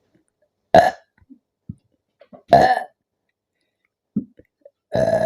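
A woman burping three times, about two seconds apart, each a short loud belch. They are fizzy-drink burps from chugging Thums Up cola.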